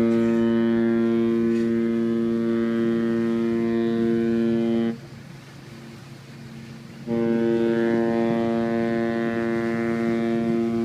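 Ship's horn giving two long, steady, deep blasts of about five seconds each, with a gap of about two seconds between them. It is a warning signal to get out of the way.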